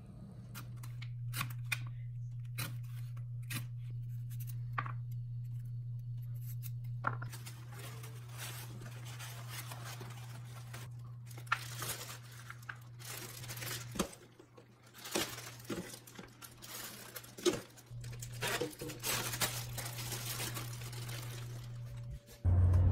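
A clear plastic bag crinkling and rustling as it is handled, with a few sharp clicks in the first seconds, over a steady low hum.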